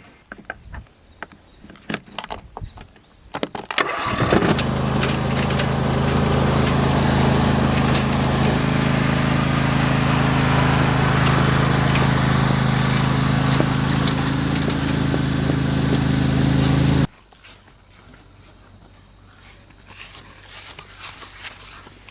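A few knocks and clicks, then about four seconds in a riding lawn mower's small engine starts and runs steadily at a constant speed, stopping abruptly about seventeen seconds in.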